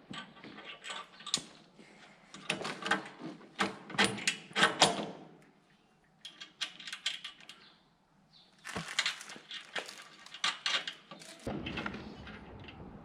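Metal tools and bolts clinking and rattling in irregular bursts of sharp clicks, as hardware is handled and done up during sawmill assembly, with a couple of short pauses.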